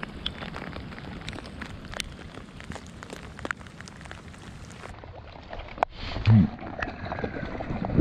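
Steady rain hissing on a pond and spattering on the camera, with many scattered sharp drop hits. About six seconds in there is a short, loud, low vocal grunt.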